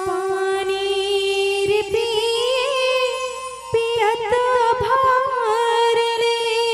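Indian devotional folk music: a long, drawn-out melody with a wavering vibrato over harmonium, with drum strokes joining in about halfway through.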